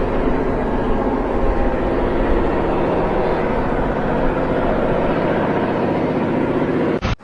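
An engine running steadily, cut off abruptly near the end.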